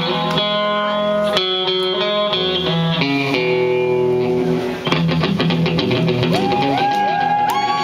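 Live rock and roll band: a Telecaster-style electric guitar plays held, ringing chords, then about five seconds in the drums come in with a steady beat under the guitar.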